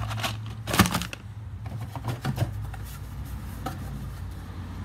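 Parts being lifted out of cardboard packaging: a few light knocks, clicks and rustles of a small card box and a red plastic part, the sharpest knock about a second in, over a steady low hum.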